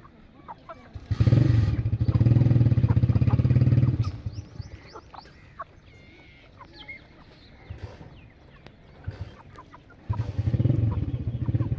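An engine runs loudly in two stretches: from about a second in until about four seconds, and again from about ten seconds. Between and under it come the soft, short clucks and calls of a flock of young Paper White chickens pecking at the ground.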